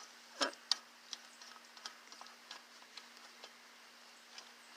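Ratchet wrench clicking faintly in irregular runs as a motor mount bolt is turned out, with a faint steady hum underneath.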